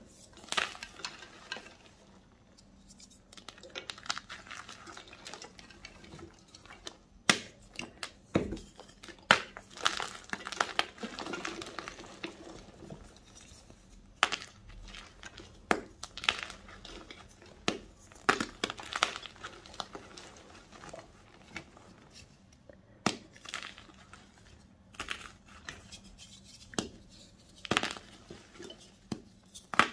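Blocks of gym chalk (magnesium carbonate) squeezed and broken between the fingers: soft, powdery crunching and crumbling, cut by a sharp snap every few seconds as a block breaks, with a denser run of crunching about ten seconds in.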